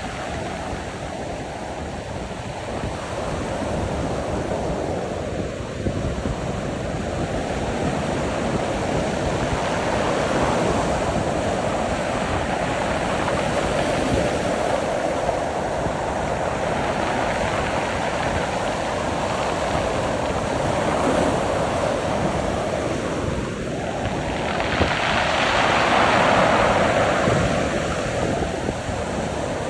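Sea surf: waves washing in and breaking in a continuous rush that swells and ebbs, with the loudest wave breaking near the end.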